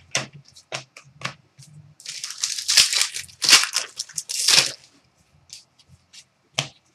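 Plastic trading-card pack wrapper crinkling and tearing for about three seconds, opened by hand. A few sharp taps come before it, and a few light ticks and one sharp tap near the end.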